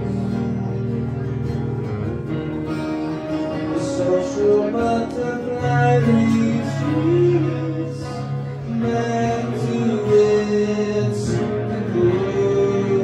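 Live acoustic guitar playing with a male voice singing over it, the notes held and sliding in pitch.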